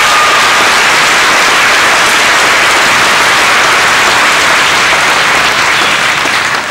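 Audience applauding, loud and steady, tapering off near the end.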